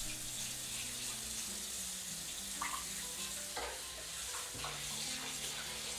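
Cold tap water running in a steady hissing stream into a plastic tub where a pork shoulder is soaking, with a knife scraping the wet skin under the stream and a few short splashes.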